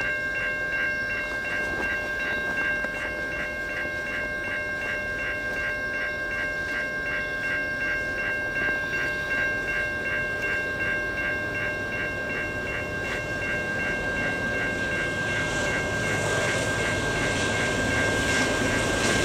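Level-crossing warning bell dinging in a steady, rapid rhythm as a freight train led by two GE C44-9W diesel locomotives approaches. The train's rumble grows louder over the last few seconds.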